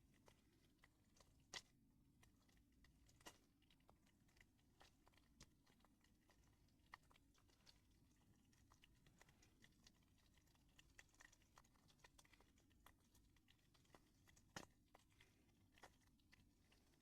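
Faint, irregular scratches and clicks of a chainsaw file scraped across a hard stone to test its hardness, with a few sharper clicks standing out.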